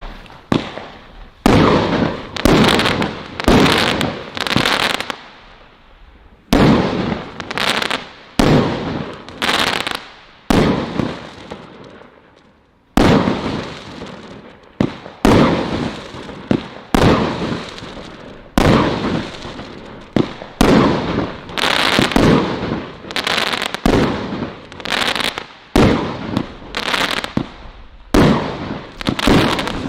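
Celtic 'Colour Crackles' firework firing shot after shot, each sharp report followed by a crackling tail. The shots come in clusters, with two short lulls in the first half, then follow every half second to a second.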